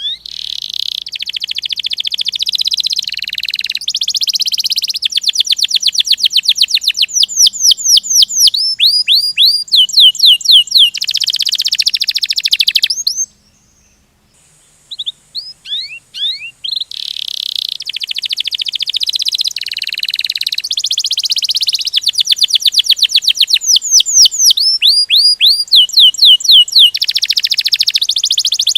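Domestic canary singing a long rolling song: high-pitched fast trills and rapid runs of downward-sweeping notes, breaking off for about a second near the middle and then starting again.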